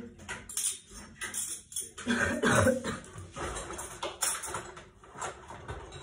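Cutlery and dishes clinking and knocking as they are taken out of a dishwasher rack: a string of short clatters, loudest about two seconds in.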